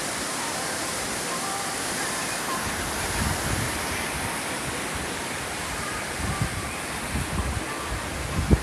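Steady wash of lake waves, with wind buffeting the microphone in low rumbling gusts during the second half.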